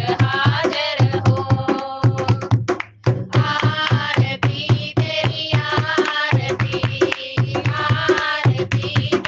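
Devotional song: a voice singing over a steady hand-drum beat, with a brief break just under three seconds in.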